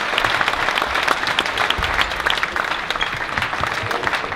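Spectators applauding at a table tennis match: dense, many-handed clapping that eases slightly toward the end.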